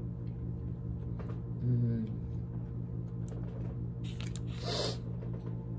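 Eating at a table: faint clicks of food being handled and chewed, a short hummed 'mm' about two seconds in, and a breathy hiss a little past four seconds, over a steady low hum.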